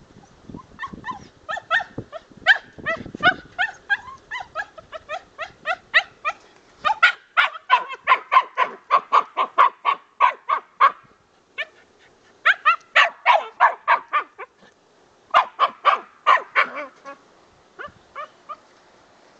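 Puppy yapping in fast runs of short, high, sharp barks, about four or five a second, at a squirrel in a wire cage trap. A long run gives way to two shorter bursts after brief pauses, then a few scattered yips near the end.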